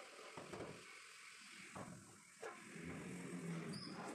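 Faint knocks and clinks of metal brake parts, a caliper and disc, being handled by hand, a handful of separate knocks over a steady background hiss.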